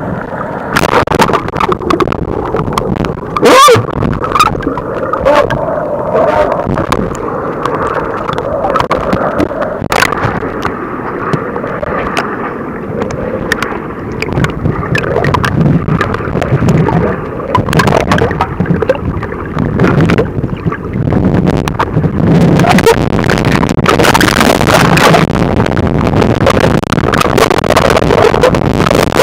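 Gurgling, rushing river water heard by a waterproof camera in the current, muffled, with many small knocks and bubbling. It grows brighter and splashier in the last third.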